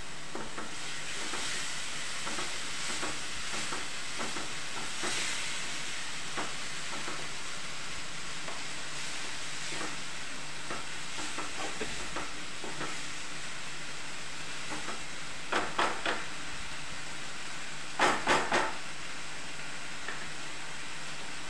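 Ginger-tomato masala, thinned with a little water, sizzling steadily in a kadai while a spatula stirs and scrapes it. Two short sharp knocks come past the middle and a louder run of three near the end.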